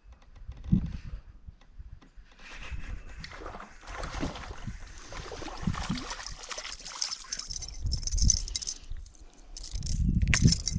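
Water sloshing and gurgling around a fishing kayak, with irregular handling thumps and light rattling of gear.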